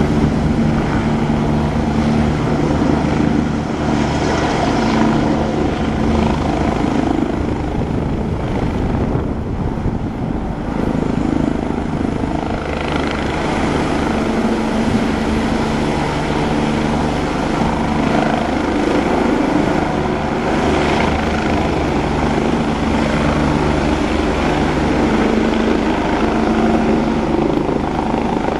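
Medical helicopter running on the pad and lifting off: steady rotor drone with turbine whine, the blade noise growing fuller from about twelve seconds in as it rises and climbs away.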